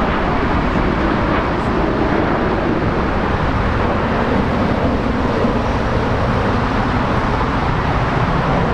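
Airbus A340-300's four CFM56 jet engines at takeoff power, a steady, loud rumble with no change in pitch or level.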